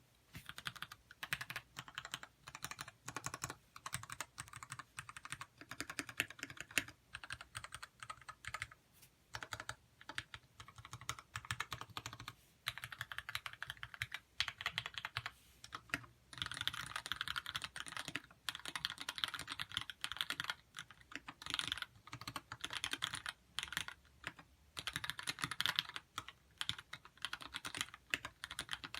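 Typing on a Lyn Dolphin v2 custom mechanical keyboard with Gateron Yellow linear switches: quick runs of keystrokes broken by short pauses.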